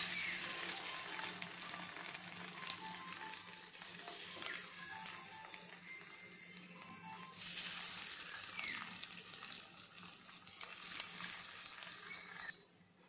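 Slices of bread sizzling in hot oil in a nonstick frying pan as they are laid in. The sizzle swells right at the start and again about seven seconds in as more slices go down, then dies away shortly before the end.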